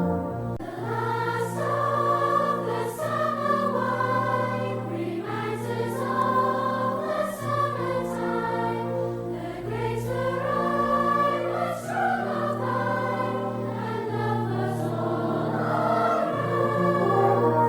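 Choral music: several voices singing long held notes over a sustained low accompaniment.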